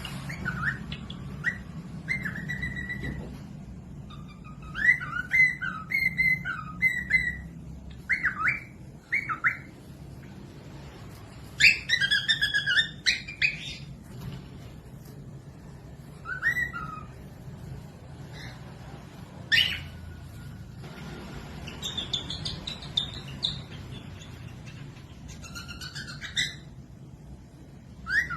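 Cockatiels calling: groups of short chirps and whistled notes, some rising or falling in pitch, coming every second or two with short gaps, over a steady low hum.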